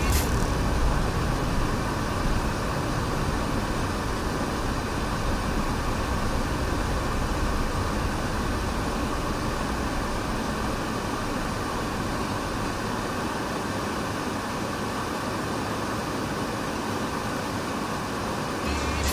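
Steady, even cabin noise of a car driving slowly in city traffic, picked up by a dashcam microphone inside the car.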